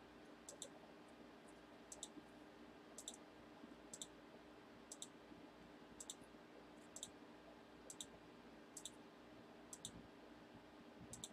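Computer mouse clicking, single faint clicks about once a second, each one re-running an online list randomizer.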